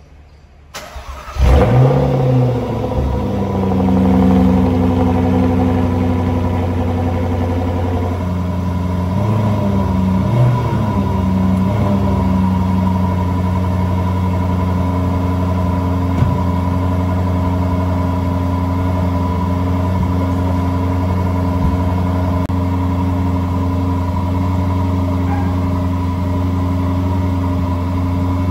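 Jaguar XKR-S convertible's supercharged 5.0-litre V8 cold-starting: a brief crank, then it fires with a loud flare and settles into a high fast idle. About eight seconds in the idle steps down, wavers for a few seconds, then holds a steady lower idle as the cold engine warms.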